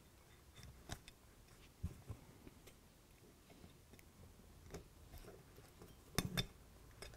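Faint, scattered small clicks and taps of plastic and metal parts being handled in a model locomotive chassis, with a short cluster of louder clicks about six seconds in.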